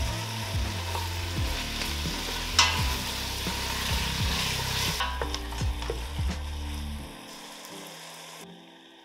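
Chopped tomatoes and garlic sizzling in hot oil in a stainless steel pot while a wooden spoon stirs them, with a single sharp knock about two and a half seconds in. The sizzle fades in the second half.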